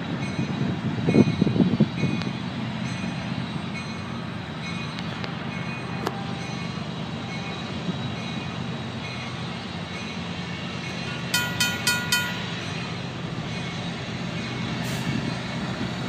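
RACO mechanical railroad crossing bell ringing steadily at about two strokes a second, over the low rumble of an approaching diesel freight locomotive that is loudest in the first two seconds. A brief pulsing high-pitched ring comes about three quarters of the way through.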